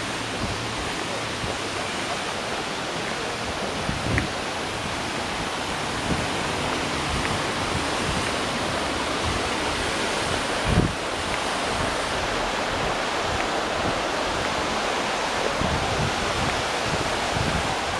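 A steady rushing outdoor noise, even and without any clear pitch, with a couple of dull thumps about four and eleven seconds in.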